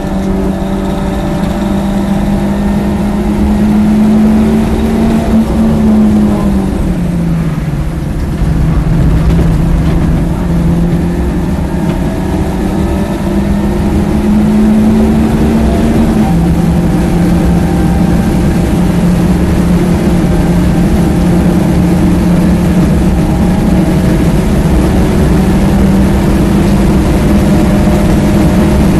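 BMW 1.8-litre four-cylinder engine pulling hard at high revs, heard onboard, its pitch climbing steadily. About six seconds in the revs wind down as the car slows. They then climb again, and about sixteen seconds in the pitch drops at once with an upshift before rising again under steady tyre and wind noise.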